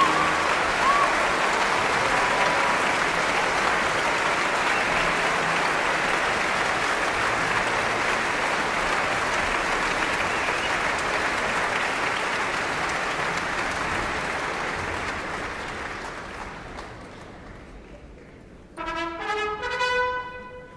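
Audience applauding steadily from a concert recording, with a whistle or two near the start; the applause fades out and an orchestra starts playing near the end.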